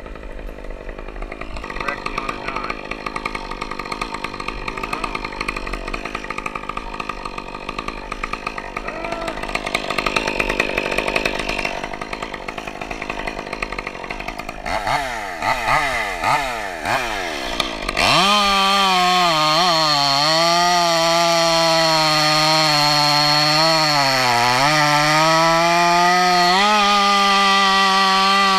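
Two-stroke chainsaw running at low speed, blipped up and down a few times near the middle, then held at full throttle from about two-thirds of the way in. Its pitch dips briefly twice as the chain loads up cutting into the pine.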